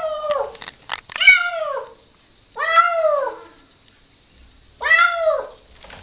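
Kitten meowing repeatedly: a call fading out at the start, then three separate drawn-out meows about two seconds apart, each rising and then falling in pitch.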